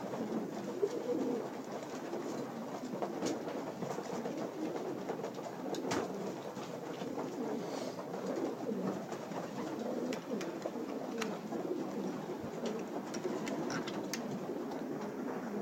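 A loft full of racing pigeons cooing, many low coos overlapping continuously, with scattered sharp clicks among them.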